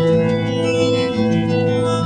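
Background music led by an organ playing held chords.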